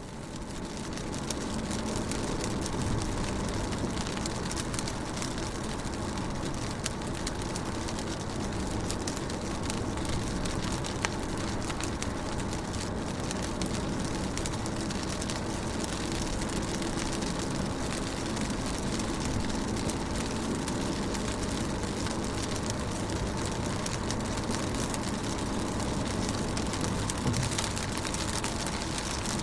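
Rain pattering on a car's windows and body, heard from inside the car, as a steady patter of drop ticks with a low steady hum beneath. It fades in over the first second or two.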